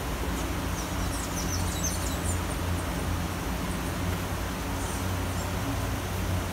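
Steady rain falling in a city, with a low steady rumble underneath. A bird chirps a quick run of short, high chirps about a second in.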